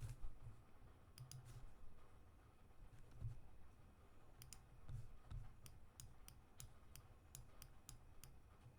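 Faint computer mouse clicks, scattered at first and coming several a second in the second half, with soft low bumps underneath.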